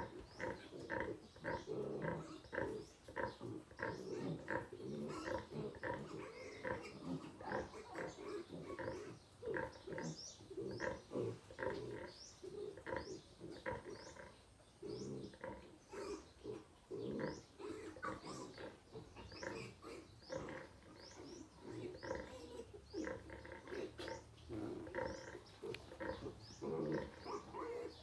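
Piglets eating, a quick, continuous run of chewing and mouth-smacking mixed with low grunts. Short high chirps repeat over it from about a third of the way in.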